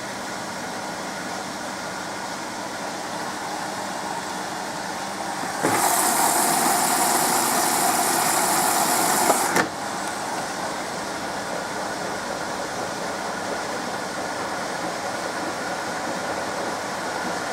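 SMEG 11 kg washing machine running steadily during its foam rinse. About six seconds in, a loud rushing hiss of water filling starts abruptly and cuts off with a click some four seconds later.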